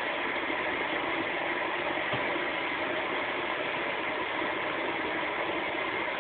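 Steady background hum and hiss, even throughout, with no distinct events.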